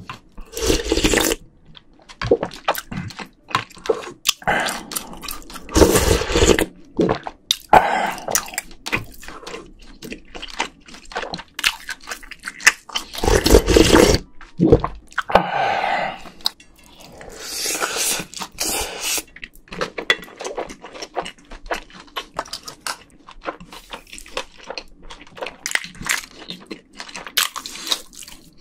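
Close-miked eating of bibimbap and grilled beef: wet chewing and mouth smacks, with several louder slurps from spoonfuls.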